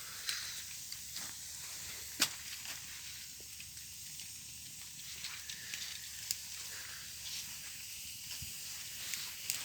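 Campfire burning: a steady hiss with scattered sharp crackles and pops, the loudest pop about two seconds in.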